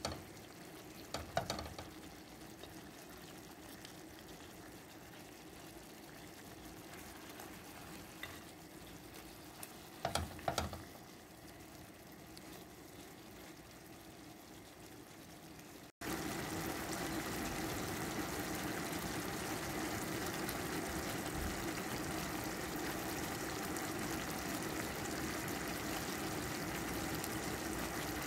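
Marinated chicken pieces frying in oil in a pan, a steady sizzle, with a few brief knocks in the first half. Just past halfway the sizzle turns suddenly louder and more even.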